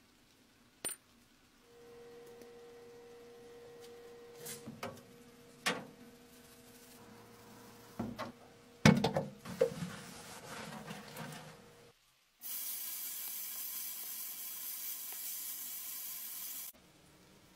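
Clinks and knocks of small metal parts and glass over a steady faint hum, the loudest knock about nine seconds in. In the last third a blast gun in a blasting cabinet hisses steadily for about four seconds, spraying baking soda, then cuts off suddenly.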